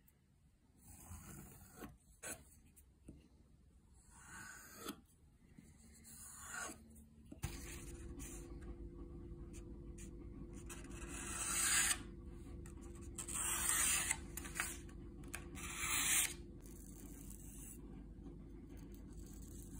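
Small neck knife blade stroked on a paddle strop, a run of soft swishing strokes. Then the stropped edge slices through paper three times to test its sharpness, each cut a louder rasping hiss, over a steady low hum.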